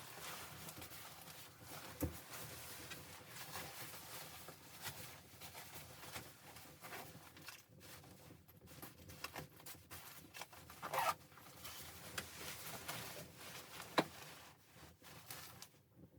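Close-up rustling and handling noises, with a sharp knock about two seconds in, a louder swish around eleven seconds and a sharp click near fourteen seconds.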